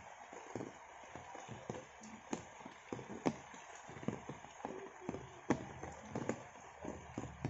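Rain falling in a garden: a light steady hiss with irregular, uneven taps of heavy drops landing on broad leaves close by, several a second.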